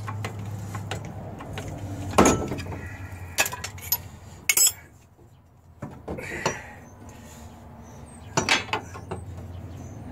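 Steel tools and press parts being handled: a handful of separate metal clanks and clinks a second or so apart.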